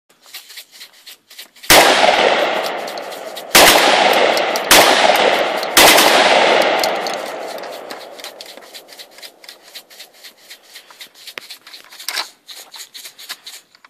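Four gunshots from a drum-fed long gun, fired singly about one to two seconds apart, each trailing off in a long echo; the last shot is a little past the middle, and afterwards there are only faint clicks from the gun being handled.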